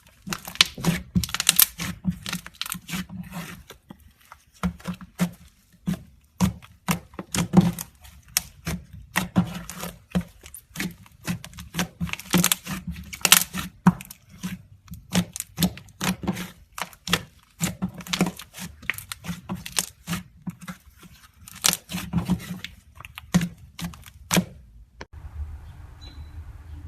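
Slime being played with, making rapid, irregular pops and clicks; about 25 seconds in this stops abruptly and only a quieter low background with a few faint ticks remains.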